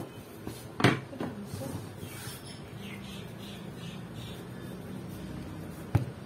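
Wooden rolling board knocked down onto a table, one sharp knock about a second in. A low steady hum follows, and a second knock comes near the end as a hand presses dough on the board.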